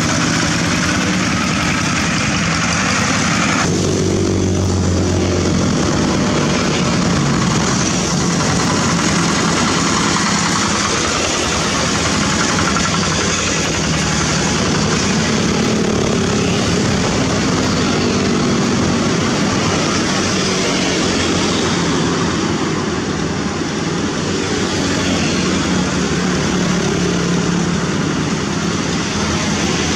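Several two-wheel walking tractors' single-cylinder diesel engines running together in a convoy, a steady, loud, continuous engine noise whose pitch mix shifts about four seconds in.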